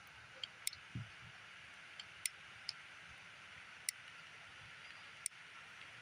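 Heritage Rough Rider revolver being loaded with CCI Stinger .22 cartridges: about eight sharp metallic clicks at irregular intervals as the cylinder is turned and rounds go in through the loading gate, with one soft thump about a second in.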